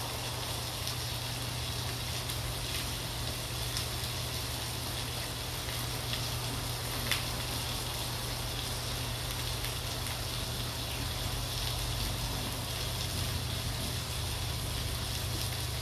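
Chicken skewers sizzling steadily on a grill pan, a continuous crackling hiss over a low steady hum, with a single small click about seven seconds in.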